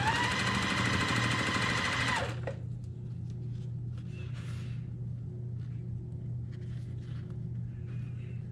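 Electric sewing machine stitching a seam at a steady speed, then slowing with a falling whine and stopping about two and a half seconds in.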